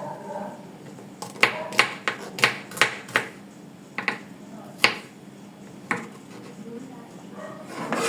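Kitchen utensils knocking and clicking in about ten irregular sharp taps, most of them in the first half.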